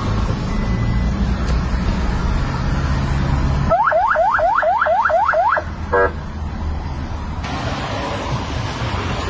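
A vehicle's low running rumble while driving, then a police siren giving a quick run of rising whoops, about four a second for two seconds, followed by one short buzzing blast. Steady traffic noise continues after the siren stops.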